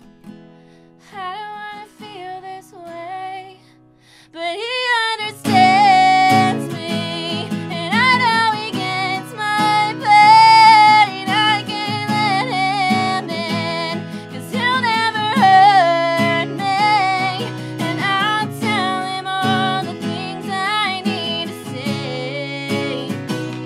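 A woman singing live to her own strummed acoustic guitar. For the first few seconds she sings softly over light guitar, then about five seconds in the strumming comes in fuller and the song gets much louder.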